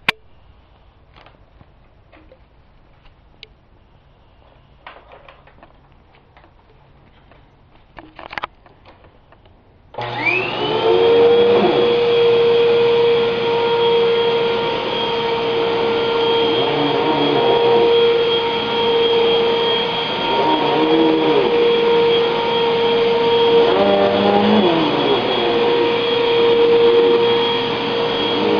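A vacuum cleaner switches on after about ten seconds of faint clicks and taps. Its motor whine rises quickly to a steady high pitch and keeps running, wavering now and then.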